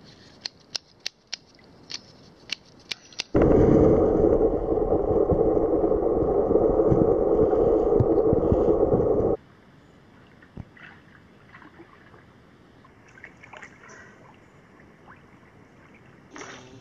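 A run of sharp clicks, then a loud muffled rushing of water over a camera held underwater in a creek for about six seconds, which cuts off suddenly. After that, quiet creek water trickling with small ticks.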